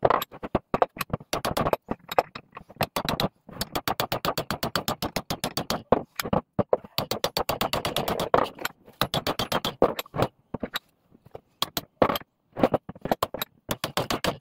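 Rapid series of hammer blows on a cast-iron Record No. 1 vice, several a second with a few short pauses, driving its grease-seized main screw out of the nut.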